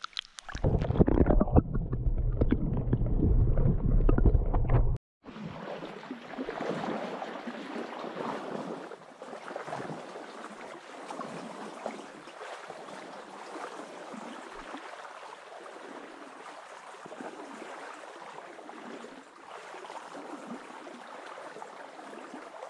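Loud water sloshing and rumbling right against the camera as a brook trout is released at the surface, cutting off abruptly about five seconds in. Then a small creek runs steadily with an uneven, rushing noise.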